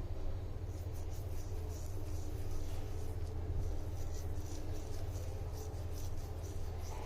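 Soft, irregular rubbing and scratching of salt being scrubbed onto a thick Indian borage (doddapatre) leaf by hand, over a steady low hum.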